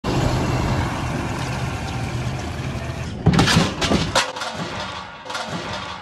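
Farm tractor's diesel engine running steadily, then a few loud knocks and rattles about three seconds in, after which the engine sound drops away.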